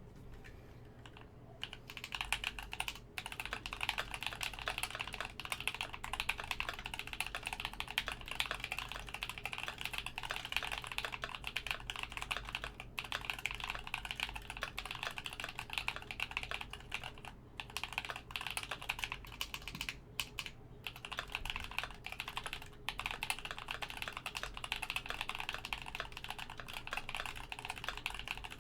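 Fast continuous typing on a custom mechanical keyboard (Idobao ID80) with lubed NK Cream x Gateron Brown frankenswitches, a dense run of key clacks, with a few short pauses. A stabilizer rattle on the longer keys may be heard.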